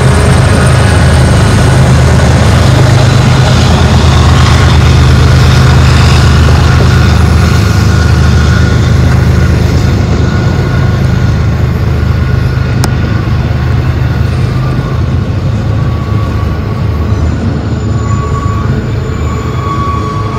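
BNSF diesel-electric freight locomotives passing close by with a deep engine drone that eases off after about eight seconds. It gives way to the steady rolling noise of the intermodal train's double-stack container and trailer cars on the rails, with a faint wheel squeal near the end.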